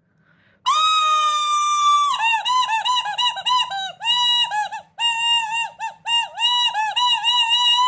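A loud, high-pitched honking noisemaker: one held tone for about a second, then a run of quick wavering, stuttering notes that dip in pitch, with short breaks between them.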